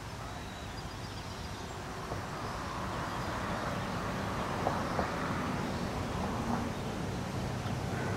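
A low engine hum, like a motor vehicle passing some way off, growing slowly louder.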